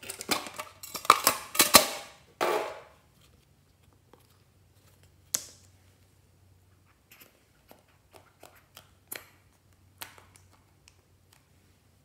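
Hard plastic container being unlatched and opened: a quick run of clicks and rattles from its wire clip latches and lid in the first three seconds, ending in a short scrape as the lid comes off. Then scattered light clicks and taps, with one sharper click about five seconds in.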